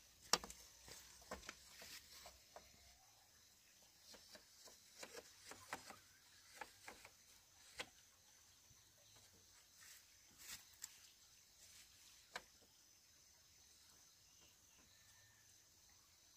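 Scattered light knocks and clicks of split bamboo slats being handled and laid on a bamboo table frame, the sharpest just after the start and a quick run of them a few seconds later.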